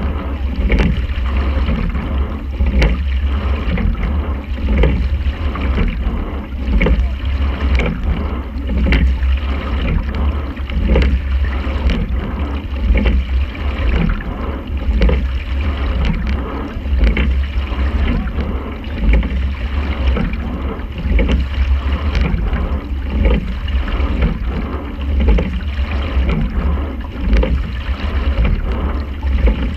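Quadruple scull being rowed at race pace: a knock and surge of water about every two seconds, one per stroke, over water rushing past the hull. Under it, a steady low rumble of wind on the microphone.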